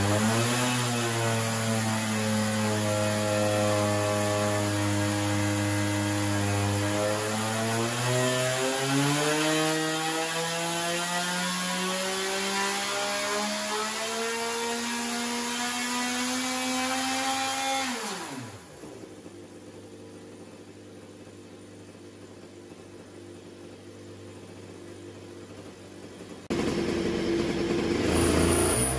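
IAME X30 single-cylinder two-stroke kart engine running on a water-brake dyno, its revs climbing slowly over several seconds and then falling away sharply about two-thirds of the way in. A quieter steady hum follows, and near the end the engine is heard running again.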